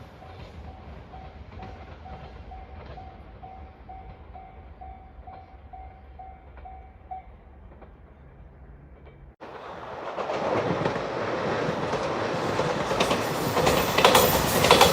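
A level-crossing warning bell rings in even, steady pulses, about two a second, and stops about seven seconds in. After a sudden cut, a train passes over the crossing, its wheel rumble and clickety-clack on the rail joints growing louder toward the end.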